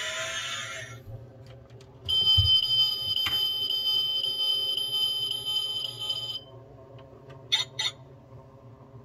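A 1:32 die-cast Ferrari 458 toy's light-and-sound module. A noisy engine-rev sound fades out in the first second, then a steady high electronic beep sounds for about four seconds, with a click partway through. Two short clicks come near the end.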